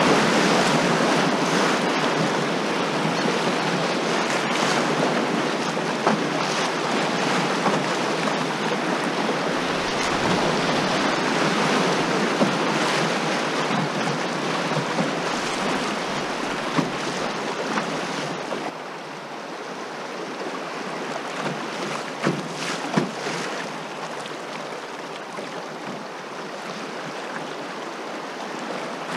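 Whitewater rushing around a canoe running a rapid: a loud, steady rush of water and spray, with a few brief knocks. About two-thirds of the way through the rush suddenly drops to a quieter riffle sound.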